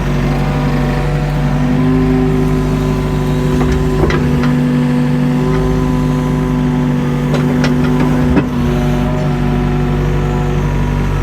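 Mini excavator engine running steadily under load, with a steady pitched hydraulic-and-engine drone. A few sharp knocks about four seconds in and again near seven to eight seconds, as the bucket works the old concrete block foundation.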